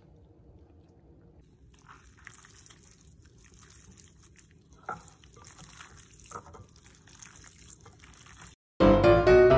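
Gloved hand squeezing and kneading sliced beef in marinade in a glass bowl: faint, irregular wet squishing and squelching. Near the end, loud piano music starts suddenly.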